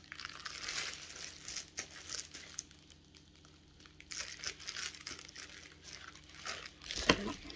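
Packaging crinkling and rustling in irregular bursts as it is handled and pulled at to open it, with a short louder noise near the end.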